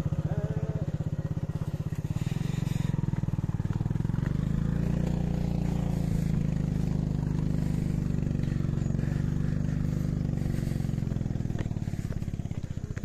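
Motorcycle engine running as the bike rides along a muddy grass trail. Its note rises a little about four seconds in, holds, and settles back near the end.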